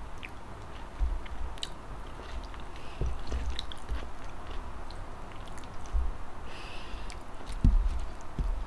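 Close-miked chewing and mouth sounds of someone eating rice and eggplant omelette by hand, with scattered soft clicks and low bumps as food is handled.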